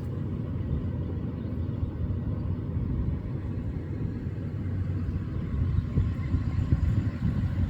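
Toyota 4Runner driving along a dirt mountain trail: a steady low rumble of engine and tyres.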